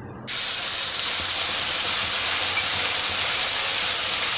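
Ground wet spice paste dropped into hot oil in a kadhai: a loud sizzle starts suddenly a moment in and holds steady as the paste's water boils off in the oil.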